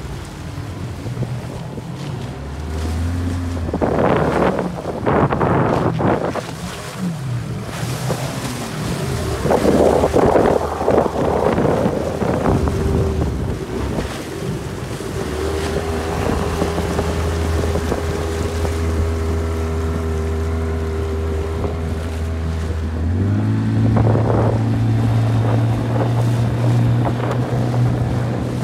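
Outboard motor of a PVC inflatable boat running, its pitch stepping up and down as the throttle changes, with gusts of wind and water noise rushing over it twice.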